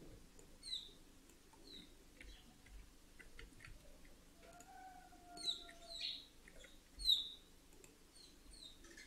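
Faint chirps of small birds: short, falling notes repeated irregularly, the loudest clustered about five to seven seconds in. Light scattered clicks run alongside, and a faint steady tone sounds briefly in the middle.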